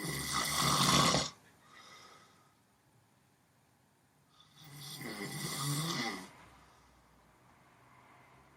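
Sleep snoring: two long snores, one right at the start and one about four and a half seconds in, the first the louder.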